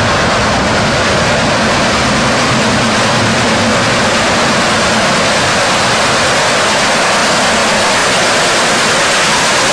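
Steam locomotive approaching through the tunnel, heard as a loud, steady roaring hiss with no separate exhaust beats; a low hum underneath fades over the first few seconds.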